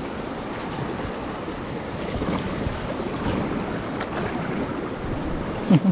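Steady rush of river water and wind on the microphone, heard from an air mattress drifting downstream. A short sliding sound comes near the end.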